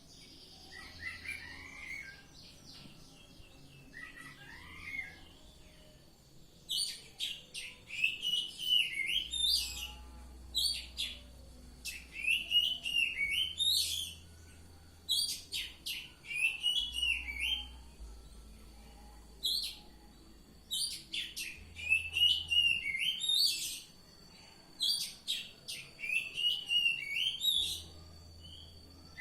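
Oriental magpie-robin (kacer) singing: phrases of whistles and rapid sweeping notes, repeated every couple of seconds. The first few phrases are soft, then a run of loud phrases follows from about a quarter of the way in.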